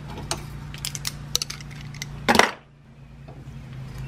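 Metal tools handled against a wired-together McCulloch chainsaw centrifugal clutch clamped in a vise: scattered light metallic clicks and clinks from vise-grip locking pliers and the clutch's springs and shoes. There is one louder clatter about two and a half seconds in, over a low steady hum that stops soon after it.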